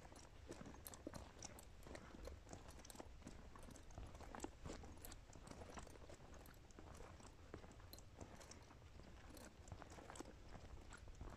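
Near silence with faint, irregular crackles and clicks, several a second, over a low hum.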